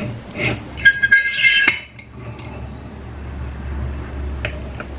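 Stainless steel French press plunger being pushed down, its metal filter scraping inside the steel carafe with a ringing metallic squeal for about a second, then a couple of light metal clicks near the end.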